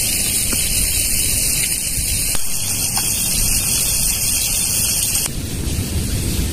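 Seafood frying in hot oil in a pan over charcoal embers: a steady sizzling hiss whose highest part eases about five seconds in.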